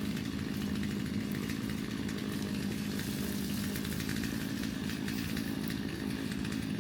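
Chainsaw engine running steadily, without revving up or down.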